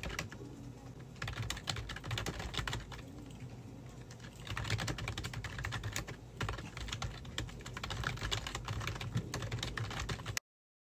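Typing on a computer keyboard: rapid runs of key clicks that ease off briefly twice, then cut off suddenly near the end.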